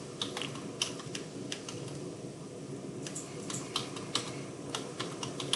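Typing on a computer keyboard: uneven key clicks, with a short pause about halfway through.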